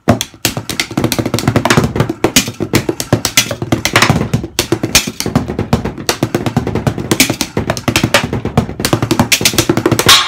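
Wooden drumsticks playing fast single-stroke rolls and fills on makeshift drums made of tape-wrapped cardboard boxes, with a splash cymbal struck now and then. A loud final hit comes near the end.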